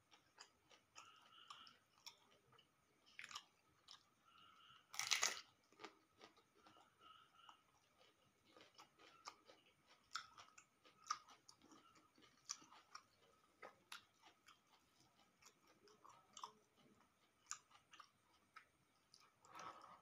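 A person chewing raw leafy vegetables close to the microphone: quiet, irregular crunching and wet mouth clicks, with one louder crunch about five seconds in.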